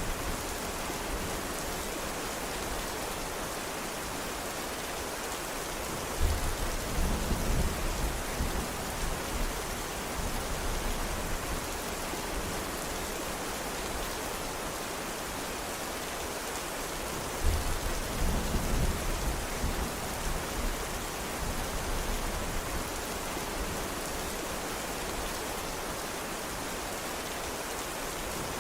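Steady heavy rain, an even hiss. Twice, about six seconds in and again near two-thirds of the way through, a low rumble of thunder starts suddenly and rolls on for several seconds.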